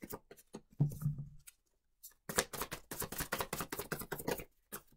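Tarot cards being shuffled by hand: quick runs of small papery slaps and clicks, pausing briefly and starting again about two seconds in for a couple of seconds. A short low hum comes about a second in.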